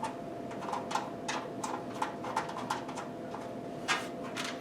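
Irregular light clicks and taps of computer parts and cables being handled, over a faint steady hum.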